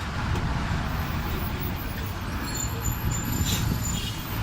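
Steady road traffic noise: the low rumble of engines and tyres from passing vehicles.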